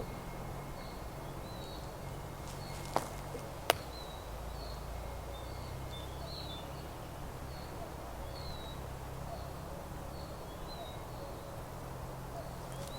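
Small songbirds in a meadow giving short, high chirps about once a second over a steady outdoor background, with two sharp clicks about three seconds in.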